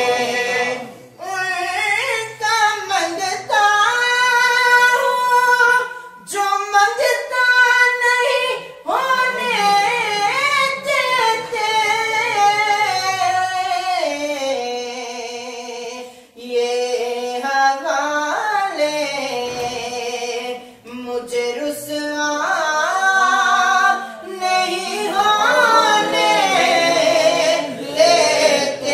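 A man singing a naat unaccompanied, in long drawn-out phrases of wavering, ornamented held notes, with short pauses between phrases.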